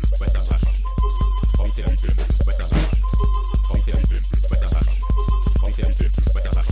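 Background music: a song with a steady drum beat, a short high figure recurring about every two seconds.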